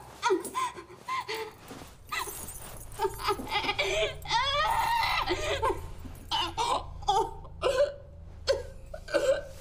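A person laughing in short bouts, with a low hum underneath through the middle.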